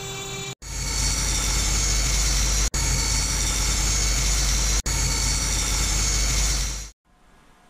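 Benchtop band saw running and cutting through a strip of wood, a steady noisy drone over a low hum, with two very brief dropouts, stopping suddenly near the end. It is preceded for a fraction of a second by the whine of a CNC router spindle.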